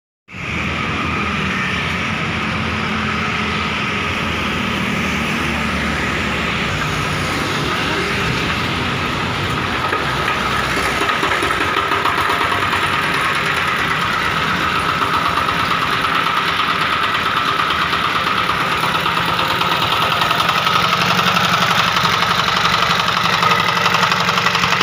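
Jiangfa 10 hp single-cylinder horizontal diesel engine running steadily, getting a little louder about halfway through.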